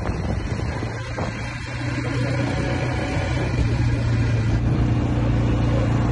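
Quad bike engine running while riding, a steady hum that gets louder about two seconds in and again near the end.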